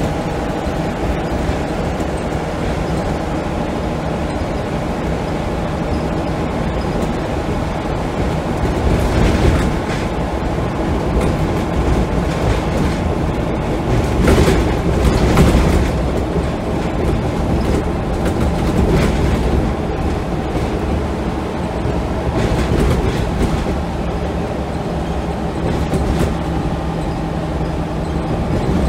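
Scania L94UB single-deck bus heard from inside the saloon while under way: its 9-litre five-cylinder diesel pulls with a steady drone over road rumble, body rattles and occasional knocks. It grows louder for a few seconds around the middle.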